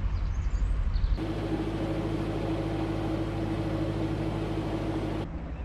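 Narrowboat's engine running steadily with a low rumble. About a second in the sound changes abruptly and a steady hum joins it, then it drops back near the end.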